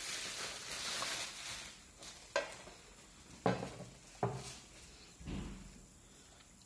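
Bubble wrap crinkling and rustling as it is pulled off a plastic nail lamp, then a few sharp knocks as the lamp is set down and placed on the table.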